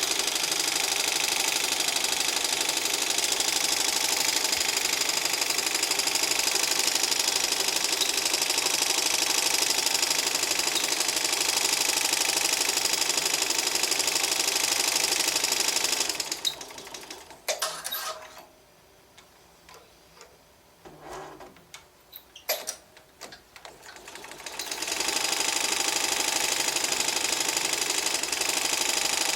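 Embroidery machine stitching at speed with a grinding noise from the hook and its shaft, which the owner blames for the hook timing slipping from 100°. It stops about sixteen seconds in, a few clicks sound during the pause, and it starts stitching again near the end.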